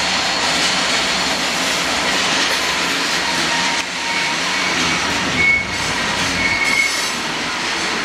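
Freight train of hopper cars rolling past on a tight curve: a steady rumble and clatter of wheels on rail, with thin high wheel squeals coming and going, most clearly in the middle.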